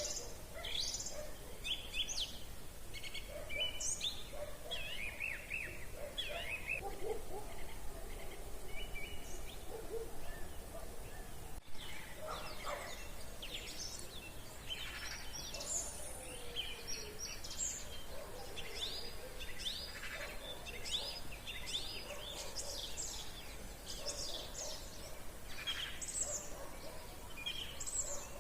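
Several songbirds singing and calling together in an evening chorus, with many short, high, overlapping chirps and trills, over a steady low background noise.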